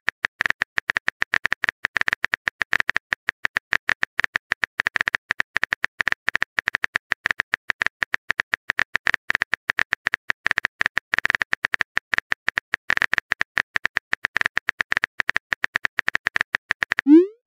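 Fast, even clicks of a phone's on-screen keyboard sound, many a second, as a text message is typed. Just before the end the clicks stop and a short rising swoosh plays as the message is sent.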